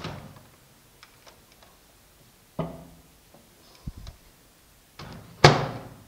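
Microwave oven door opened with a click, a glass bowl set down inside with a thunk, some small knocks, then the door shut with a loud slam near the end.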